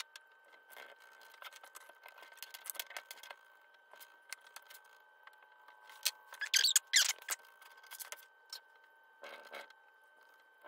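Quiet handling sounds of bookbinding materials on a cutting mat: scattered light clicks and scrapes, with a brief, louder rustle of a sheet of scrap paper being laid down about six and a half seconds in.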